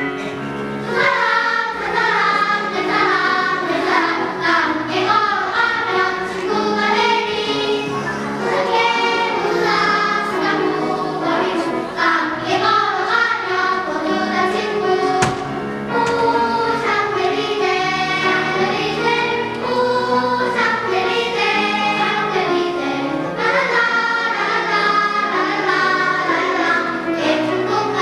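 Children's choir singing in unison and parts, with instrumental accompaniment underneath.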